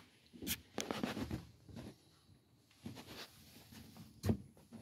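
Soft rustling and scattered light clicks and knocks, with one louder thump about four seconds in.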